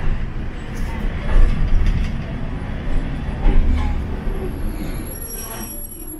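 Hiroshima Electric Railway 700-series tram running on street track, heard from inside the car: a steady low rumble of wheels and motors that eases off near the end, when a faint high squeal comes in.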